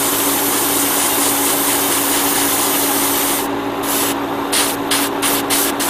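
Iwata Neo airbrush spraying paint in a steady hiss, then in short repeated bursts from about three and a half seconds in as the trigger is pulsed. A steady hum runs underneath.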